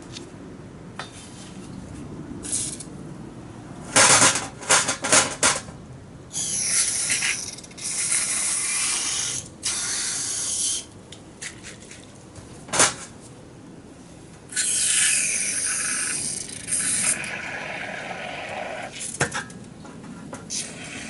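Aerosol parts cleaner sprayed onto a disassembled carburetor in four hissing bursts, the last the longest. Small metal parts clink and knock between the bursts, with a cluster of clicks before the spraying starts.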